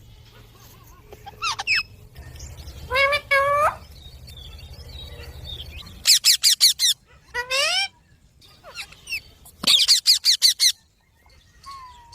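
Indian ringneck parrots calling: a few short calls that rise in pitch, then two rapid runs of shrill, high calls, one a little after the middle and one near the end.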